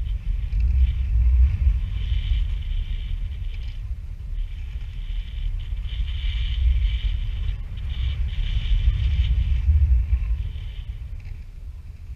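Wind buffeting an action camera's microphone during a tandem paraglider flight: a heavy low rumble that swells and eases in gusts, with a thin high hiss of rushing air over it.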